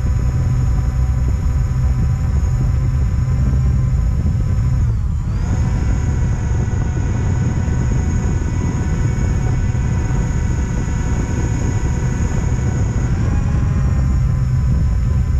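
Drone motors and propellers whining steadily over a heavy low rumble. The pitch dips briefly about a third of the way in, then recovers, and shifts again near the end as the motor speed changes.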